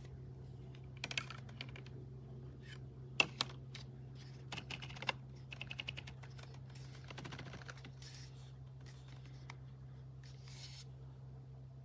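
Small battery-powered clip-on fan running with a steady low hum, with scattered clicks and short rattles on top.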